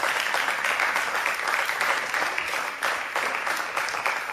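Audience applauding steadily: a dense, even patter of many hands clapping as a guest is welcomed onstage.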